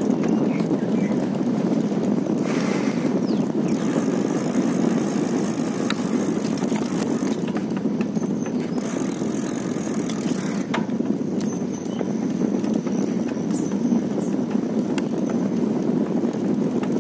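Steady running noise of a vehicle travelling along a road, with a few light clicks and rattles.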